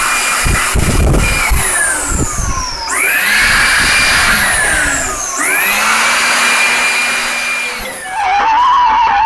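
Electric air blower motor whining as it blows excess cleaning solution off the radio. Its pitch falls as it slows and sweeps sharply back up as it is switched on again, twice. Near the end it gives way to a wavering tone.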